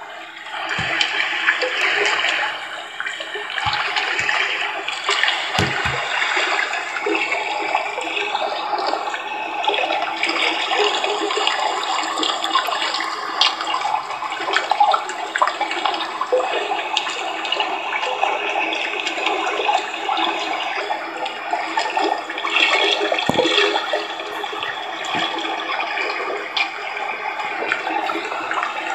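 Water running steadily from a tap into a filled tub, with a few brief low knocks.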